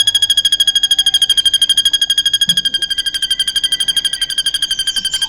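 A drongo (srigunting) singing one long, very fast, even trill that sinks slowly in pitch, the cililin-type phrase used as a song tutor for caged birds.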